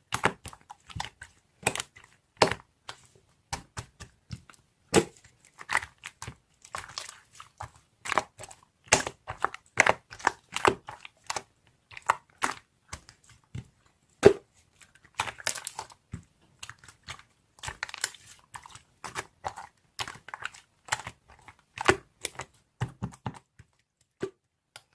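Close-up irregular crinkling, crackling and tearing noises, sharp clicks coming in uneven clusters with short pauses between.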